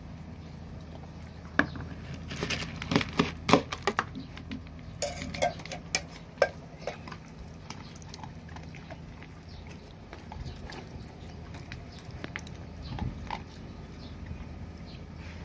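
A dog eating dry kibble from a bowl: crunching and sharp clicks of kibble and muzzle against the bowl, busiest and loudest in the first half, sparser later. A steady low hum runs underneath.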